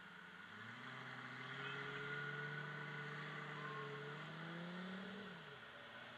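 A car engine accelerating, its pitch rising steadily for about four seconds, then falling away quickly near the end.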